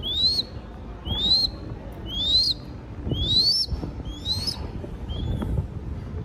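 Crested goshawk chick giving its food-begging call: a thin whistled note rising in pitch, about once a second, six times, the last one fainter.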